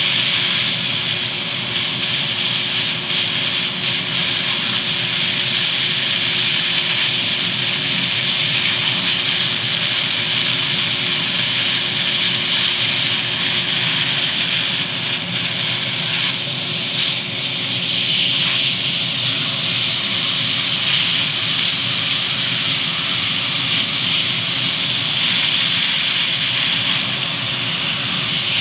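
High-speed dental handpiece whining as its bur cuts out an amalgam filling, the high whine coming and going in runs of a few seconds, over the steady hiss of high-volume dental suction pulling the particles away.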